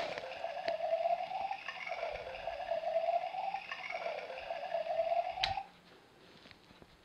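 Electronic sound effect from a Lego Duplo train locomotive's built-in speaker, set off by pressing its button: a buzzy tone that holds and then dips in pitch, three times over, stopping about five and a half seconds in.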